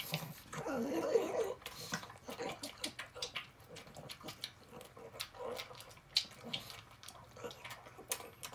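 Pug eating canned tuna from a ceramic bowl: a quick, irregular run of wet smacking and lapping clicks, louder for a moment about a second in.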